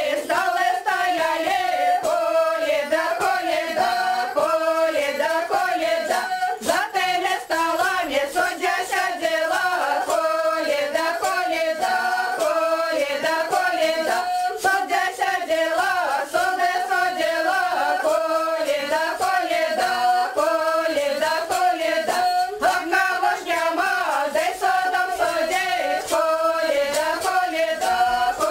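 A group of folk voices singing a Belarusian Kaliady carol in one continuous, unbroken melody.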